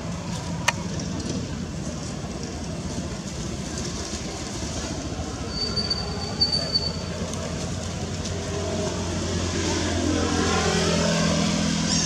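Steady low hum of a motor vehicle's engine, growing louder over the last few seconds as pitched engine tones sweep up and down. A sharp click comes near the start and a brief high steady tone about halfway through.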